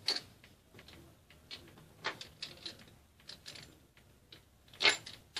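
Scattered light clicks and taps of a metal fluted pastry wheel on a marble worktop as dough is trimmed and handled, with a sharper knock at the start and another just before the end.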